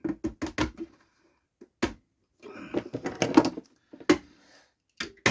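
Knocks and clicks as two new pins are pushed and tapped into the lid of a JFJ Easy Pro disc-resurfacing machine part: a handful of separate knocks, then fast, even tapping at about five strikes a second starting near the end.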